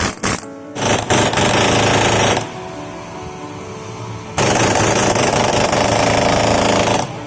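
Pneumatic screw buster (torque breaker) gun hammering on compressed air: a few short blips of the trigger, then two longer runs, the second longer than the first.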